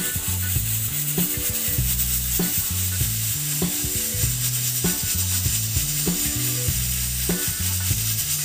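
Background music with a repeating low bass line, over a steady high sizzling hiss.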